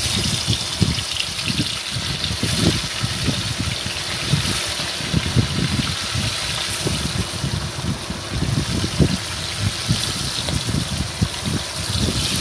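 Hilsa fish steaks frying in hot oil in a steel wok: a steady sizzle with scattered crackles, over an uneven low rumble.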